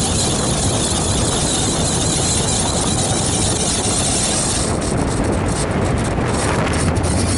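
Lexus SC400 on the move: a steady rushing of road, tyre and wind noise. The high hiss thins out in flickers from about five seconds in.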